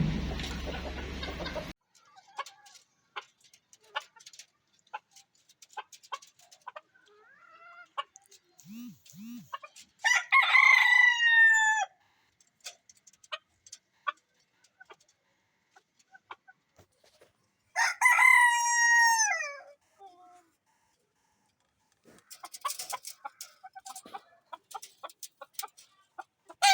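A rooster crows twice, about ten and eighteen seconds in; each crow lasts about two seconds and drops in pitch at the end. Chickens cluck softly in short scattered calls between the crows.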